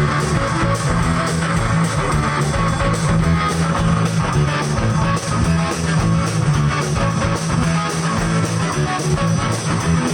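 Live rock band playing an instrumental passage: strummed guitar over bass and drums in a steady rhythm, with no singing.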